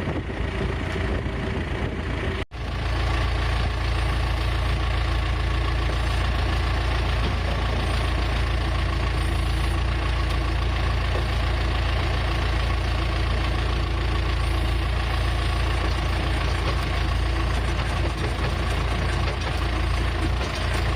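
Tractor engine running steadily, a constant low drone, while silage is loaded into a feed wagon. The sound breaks off for an instant about two and a half seconds in, then carries on unchanged.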